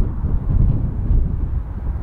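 Wind buffeting the microphone: an uneven low rumble that rises and falls.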